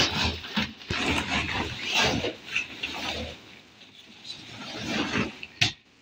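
Blue nylon sail covers and bags rustling and bumping as they are handled close to the microphone, in irregular bursts that ease off after about three seconds before one last sharp rustle near the end.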